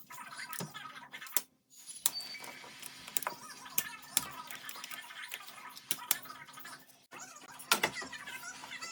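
Hand tools clinking and clicking against metal engine parts in scattered sharp knocks, with two brief moments where the sound cuts out.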